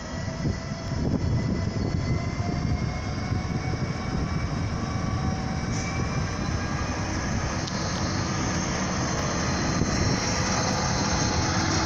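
Class 59 diesel freight locomotive approaching and passing close by at low speed, its two-stroke V16 diesel engine running, the sound growing louder toward the end.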